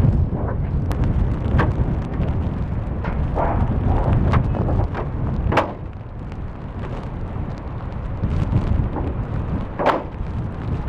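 Storm-force wind buffeting the microphone in a loud, deep rumble, with scattered sharp knocks and bangs, the strongest about a second and a half in, halfway through and near the end.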